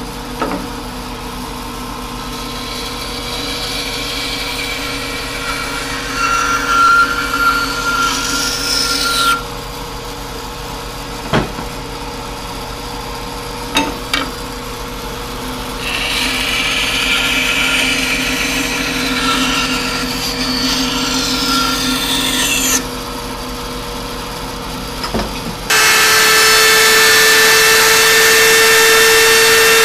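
A band saw runs with a steady hum and cuts through plywood twice, each cut lasting several seconds, with a few knocks of the workpiece between. Near the end the sound switches to a table-mounted router running loud with a steady high whine.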